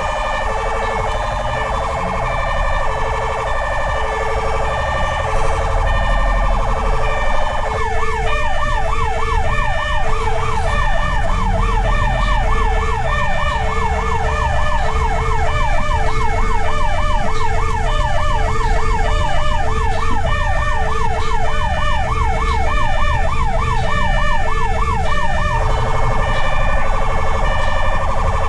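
Fire rescue truck's emergency sirens sounding while it drives under response: a wavering siren switches to a fast up-and-down yelp about 8 seconds in and back to the wavering tone near the end, over a separate pulsed tone repeating about once a second and a low engine rumble.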